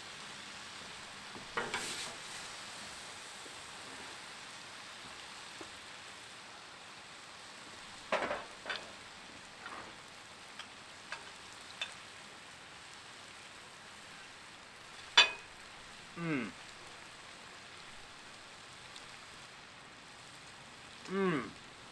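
Steak in teriyaki sauce sizzling steadily on a Blackstone flat-top griddle, with scattered short clicks and taps. A sharp click about fifteen seconds in is the loudest sound, and two short squeaks fall in pitch, one soon after it and one near the end.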